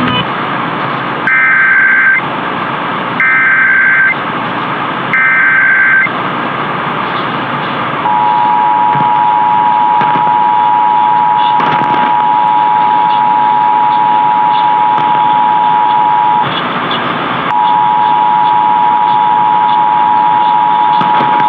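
Emergency Alert System monthly test tones received over AM radio, with steady static hiss. First come three short buzzing SAME data bursts about a second apart. Then, from about 8 seconds in, the steady two-tone EAS attention signal (853 and 960 Hz) sounds; it drops out for about a second after 16 seconds, then resumes.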